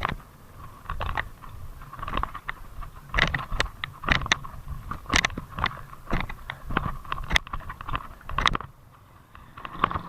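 Mountain bike rattling over rough ground: irregular clicks and knocks, quieter for a moment near the end.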